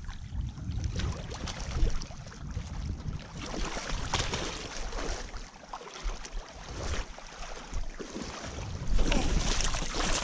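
Water splashing and churning in the shallows as a hooked striped bass thrashes while being beached, with wind buffeting the microphone. The splashing grows louder near the end.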